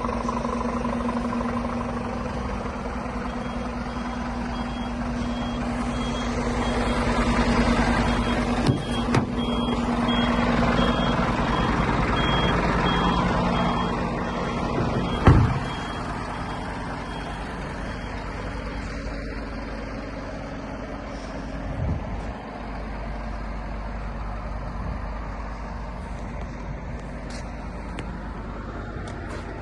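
A heavy truck's diesel engine runs steadily. A reversing beeper sounds in repeating beeps from a few seconds in until about halfway. Just as the beeping stops, there is a single sudden loud burst.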